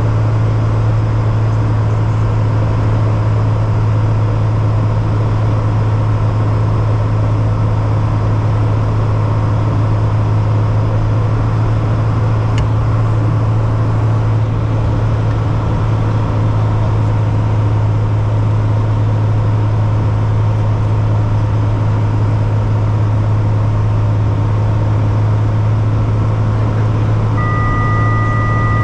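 Single-engine propeller aircraft's engine and propeller droning steadily, heard inside the cockpit on final approach. Near the end, a steady electronic warning tone sounds for about two seconds.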